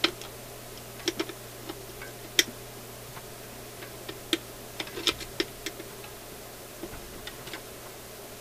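Small metal tools clicking and tapping on the spindle parts of a BSR record changer as a clamp is pried off: irregular sharp clicks, the loudest just after the start and about two and a half seconds in, with a cluster around five seconds in.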